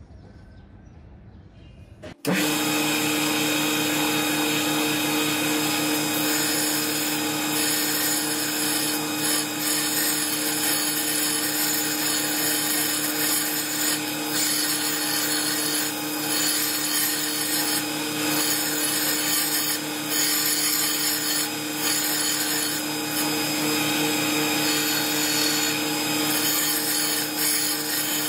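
Belt sander running steadily while a steel cross peen hammer head is pressed against the moving abrasive belt, grinding the metal and throwing sparks. It starts suddenly about two seconds in.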